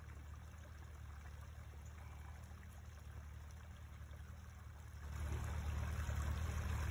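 Low, steady engine drone of off-road side-by-side UTVs, growing louder about five seconds in.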